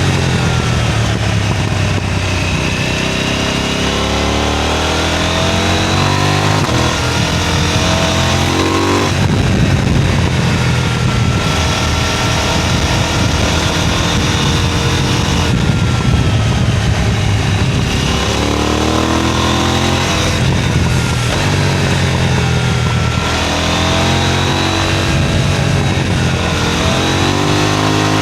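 KTM 990 Duke's parallel-twin engine pulling hard through the gears: the revs climb, drop at each shift and climb again, several times over.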